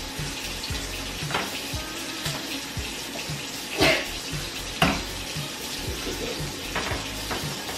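Hot grease sizzling steadily in frying pans as pancakes and sausage cook, with a spatula knocking against the pan twice, about four and five seconds in. A faint steady music beat runs underneath.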